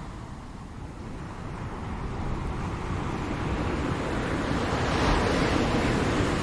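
Ocean waves breaking on a shore: the surf eases early on, then swells and crashes to a peak about five seconds in before washing back, with a steady low rumble underneath.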